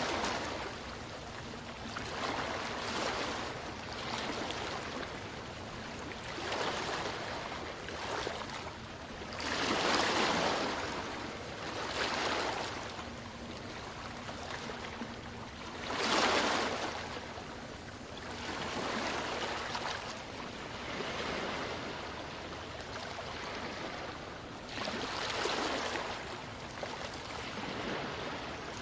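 Small waves washing up on a sandy beach, each wash swelling and fading away every two to four seconds, with a steady hiss between them.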